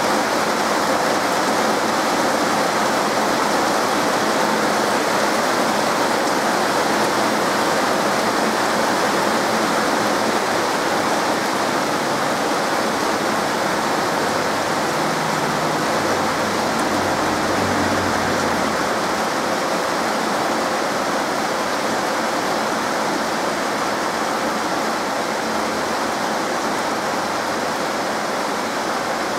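Heavy rain pouring down steadily in a rainstorm downpour: a dense, even hiss.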